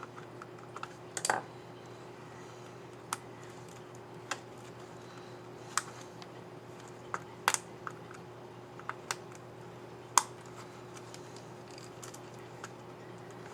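Irregular sharp plastic clicks, about a dozen, from a Lenovo ThinkPad X1 Carbon 4th Gen keyboard's keycap and scissor mechanism being worked by hand, the loudest about ten seconds in. A faint steady hum runs underneath.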